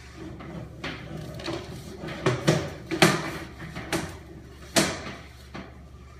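Irregular knocks and scrapes from sewer inspection camera gear being handled and pushed, about six sharp ones, the loudest about three seconds in and just before five seconds, over a steady low hum.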